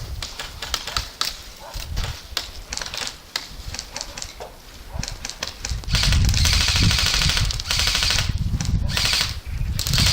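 Airsoft guns firing as rapid clicking shots. From about six seconds in there is a louder, dense rattling stretch.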